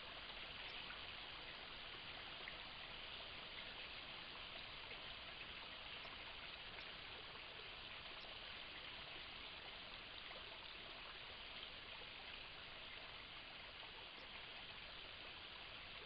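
Faint, steady rushing hiss with no distinct events, like a trickling stream.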